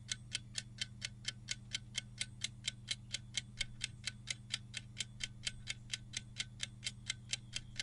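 Clock-ticking countdown timer sound effect: short, even ticks about five a second over a faint steady low hum.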